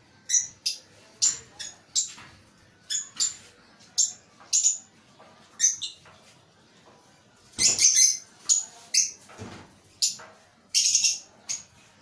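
Caged small parrots giving many short, sharp, high-pitched chirps in quick succession, in small clusters with brief pauses between them.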